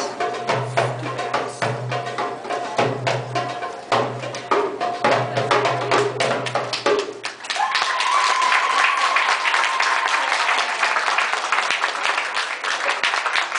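Belly dance music with hand-drum beats and a low pulsing drone stops about seven seconds in. The audience then breaks into applause and cheering, with a high held cheer or whistle for a couple of seconds.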